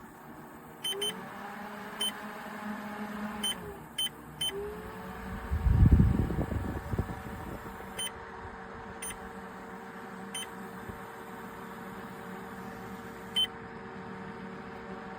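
Small portable evaporative cooler fan beeping at each button press as its settings are changed, about nine short beeps. Its motor hums underneath, gliding in pitch as the fan speed changes. There is a louder low thump about six seconds in.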